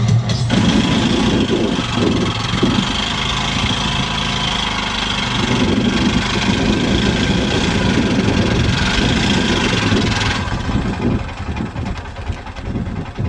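Auto-rickshaw's small engine running under load while the rickshaw is pushed through sand. The engine sound drops away and turns uneven about ten seconds in.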